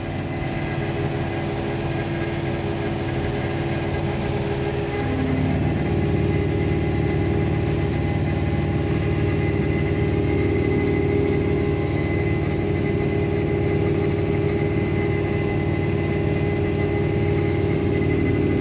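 John Deere 4066R compact tractor's diesel engine running steadily as it drives along pulling the spray boom, with a thin steady whine above it. The engine note steps up and gets louder about five seconds in.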